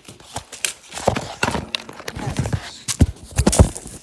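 A run of knocks, clacks and thumps from the phone being handled and bumped close to the microphone, the heaviest thumps near the end, with a few brief vocal sounds in between.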